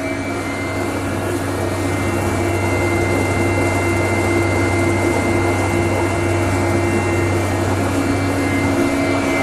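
Stainless steel slurry mixer running with a pump that recirculates water back into its tank: a steady electric hum with a thin high whine over a noisy wash. It grows a little louder over the first couple of seconds.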